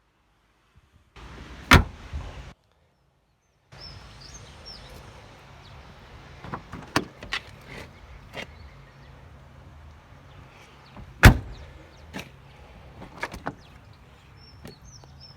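Fiat Uno car door being handled: a sharp click early on, scattered light clicks and knocks, and one loud door shut about eleven seconds in.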